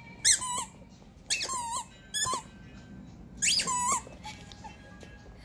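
A squeaky toy ball squeaking four times as a husky bites down on it, each squeak a short, wavering whistle.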